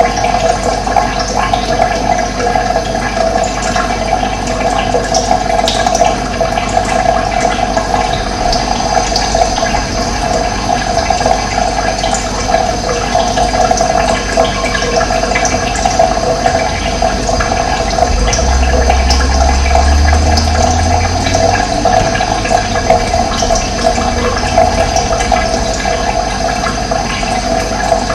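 Running water flowing steadily. A low hum rises in about two-thirds of the way through and fades a few seconds later.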